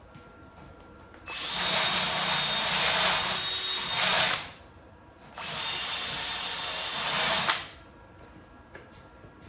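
A power tool runs in two bursts, about three seconds and then about two seconds, each starting and stopping abruptly.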